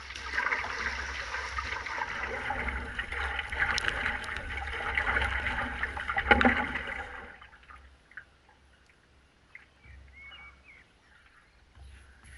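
Water rushing and splashing past the nose of a stand-up paddleboard, with wind buffeting the board-mounted microphone; a louder splash comes just after six seconds in. About seven seconds in it drops to quiet lapping and small drips.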